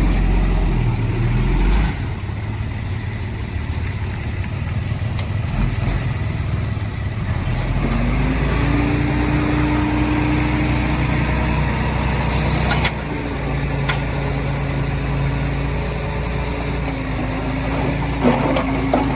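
Heavy diesel machine engine running. Its pitch rises about eight seconds in and then holds, with a few short knocks later on.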